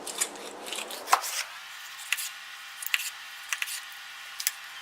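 Knife slicing a deer heart into steaks: several short, sharp cutting clicks at an uneven pace.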